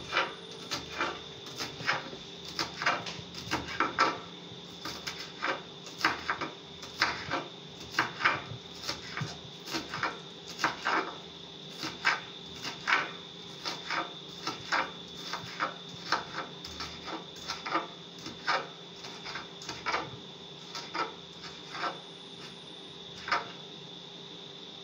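Kitchen knife chopping scallion on a wooden cutting board: steady sharp taps about twice a second, over a faint steady hum.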